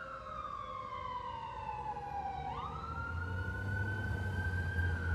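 Emergency vehicle siren wailing: a long falling tone, a quick sweep back up about halfway through, then a slow climb. A heavy vehicle's engine rumble grows louder beneath it in the second half.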